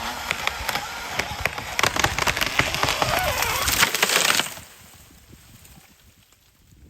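A cedar tree, about 15 inches through, cracking and splintering as it falls, with many sharp snaps and a crash through branches. The noise stops abruptly about four and a half seconds in, as the tree comes to rest.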